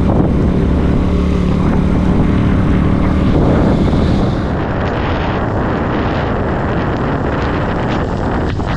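Small motorcycle engine running steadily while riding, with wind buffeting the microphone; about four seconds in the engine gives way to a steady rush of wind noise.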